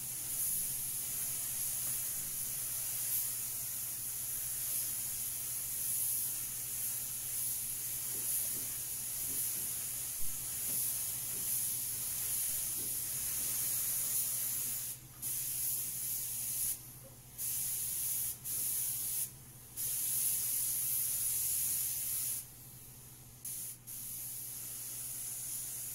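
Gravity-fed paint spray gun with a 1.8 mm tip hissing steadily as it sprays two-pack primer onto a car's rear quarter panel. From about fifteen seconds in, the hiss stops and starts several times, with short gaps between passes.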